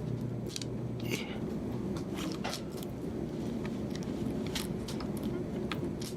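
Scattered small clicks and taps of tiny tools and parts being handled during iPhone 5S reassembly, over a steady low hum.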